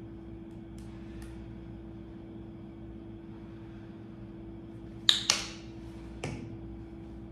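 Sharp plastic clicks from a sunscreen tube being handled: two loud clicks close together about five seconds in and a lighter knock a second later as it is put down, with a few faint clicks near the start. A steady low hum runs underneath.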